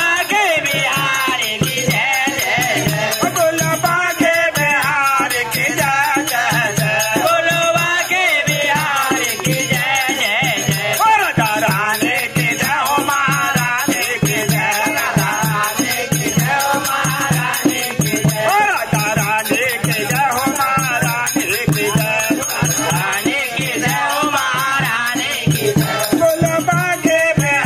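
Group of men singing together in a folk or devotional style. Under the singing run a steady drum beat and a continuous jingling rattle of hand percussion.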